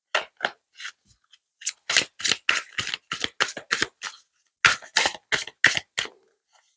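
Deck of oracle cards being shuffled by hand: a run of short strokes, about three a second, broken by two brief pauses.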